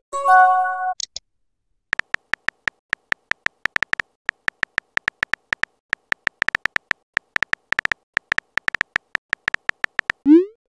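Simulated phone keyboard tap clicks, several a second, as a text message is typed out. The typing starts about two seconds in. Before it, just after the start, a short electronic chime of a few steady tones sounds as a message is sent. Near the end a rising swoosh starts the next send sound.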